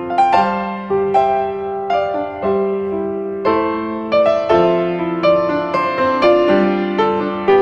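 Background piano music: a gentle melody of single notes and chords, each struck note fading, a new one about every half second.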